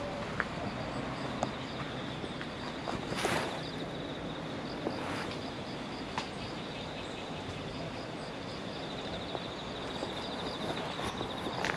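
Insects chirring steadily in the grass, a high, finely pulsing trill, with scattered light ticks. A brief rush of noise comes about three seconds in and another around five seconds.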